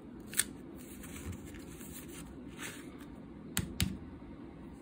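A paper label's backing being peeled and the sticker pressed onto a plastic 3.5-inch floppy disk by hand, giving soft paper rustling. There is a sharp click about half a second in and two quick taps close together near the end.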